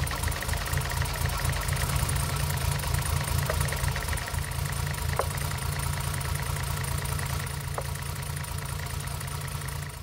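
Mercedes M110 straight-six engine idling with a big misfire, running with an even pulsing beat. With the spark plugs swapped between cylinders, the misfire has moved to cylinder one: a faulty spark plug.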